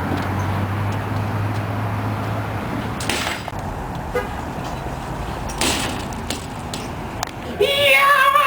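Motor vehicle running with steady road noise, a low hum in the first couple of seconds and two short hissing bursts partway through.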